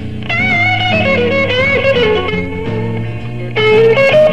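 Electric blues band playing live: an electric guitar lead holds and bends wavering sustained notes over walking bass and drums.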